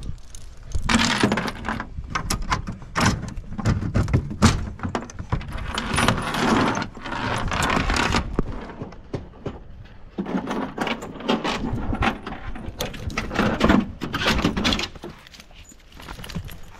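Irregular metallic clinking and rattling of an aluminium dog box on a pickup bed as its door is unlatched and swung open, and a coonhound scrambles out, with rustling and steps on dry pine straw.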